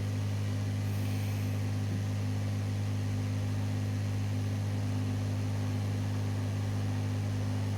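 Steady low hum with a few fainter higher overtones and a light hiss, unchanging throughout, from a powered-up PC test bench: the power supply and CPU cooling fan running while the motherboard boots.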